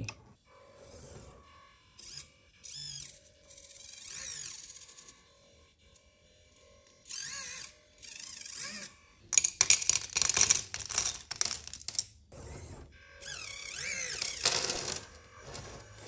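Tiny gear motors of a converted 1/64 scale RC dump truck: the N10 drive motor and the micro servo that tips the bed whine in short high spurts. About nine seconds in there is a loud run of clicking and clatter as small pieces of debris spill from the raised bed.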